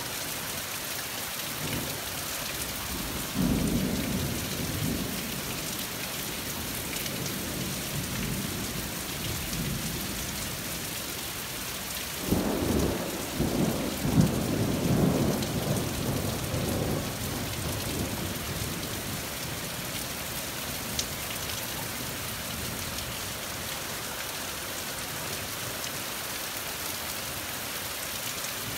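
Steady rain with two rolls of thunder: a low rumble a few seconds in, then a louder peal near the middle that opens with a few sharp cracks and rumbles on for several seconds.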